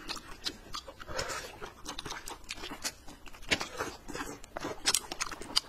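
People eating close to the microphone: chewing and crunching food, with many scattered sharp clicks and mouth smacks.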